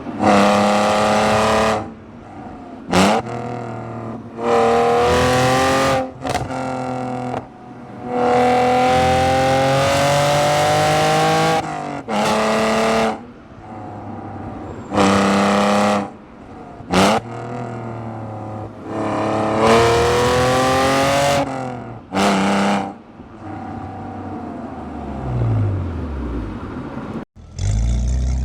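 BMW E46 exhaust recorded right by the tailpipe, loud: repeated hard accelerations with the engine note climbing in pitch, each broken off by lifting off the throttle or a gear change, with a few short throttle blips in between. Near the end the revs fall away and then climb again after a brief cut.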